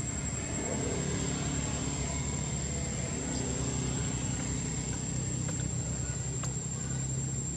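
Steady low hum of an engine running nearby, with a few faint clicks.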